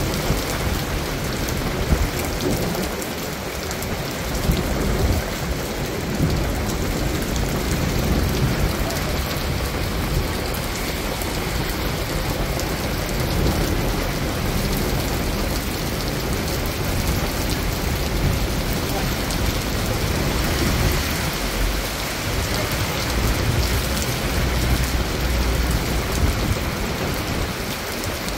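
Steady rain falling during a thunderstorm, with deep rumbles of thunder swelling and fading several times.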